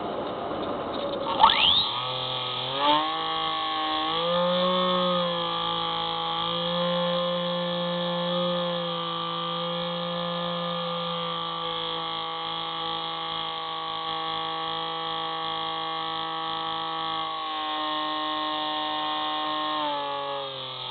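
Spyhawk FPV plane's electric motor and propeller whining steadily, heard through the onboard camera's audio, with its pitch shifting with throttle: a hiss at first, a quick rise about 1.5 s in, a step up about 4 s in and a drop near the end.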